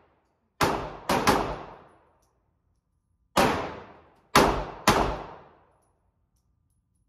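Six gunshots fired at an indoor shooting range, three in about the first second and a half and three more about two seconds later, each followed by a short echo off the enclosed range.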